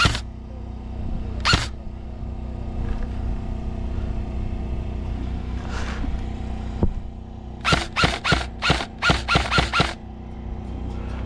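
Airsoft rifle firing: two single shots about a second and a half apart, another a few seconds later, then a quick string of about ten shots near the end, over a steady low hum.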